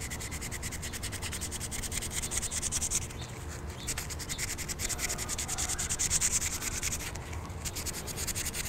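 400-grit sandpaper rubbed quickly back and forth by hand along a motorcycle brake pad pin, a fast, even scratching that pauses briefly twice. It is cleaning built-up crud off the pin so the pads can slide freely.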